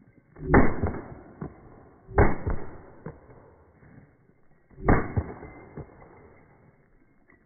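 Three pistol shots, spaced about two to three seconds apart, each followed by a short echoing tail.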